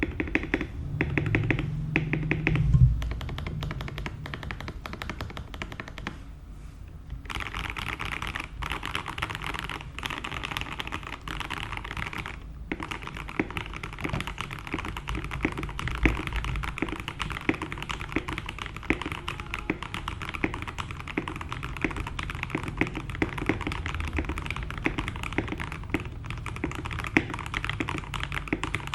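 Keydous NJ81 mechanical keyboard, brass plate with stock Kailh Box Red linear switches, typed on in a fast, steady stream of key strokes. There is a short lull about six seconds in and one louder deep thump about three seconds in.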